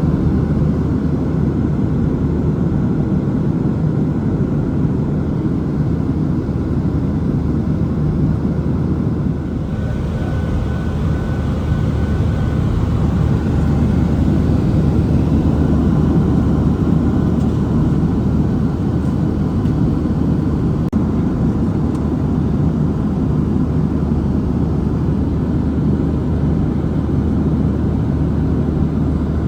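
Steady rumble of a Boeing 737-700 heard from inside the passenger cabin while climbing: the jet's CFM56 engines and airflow, strongest in the low range.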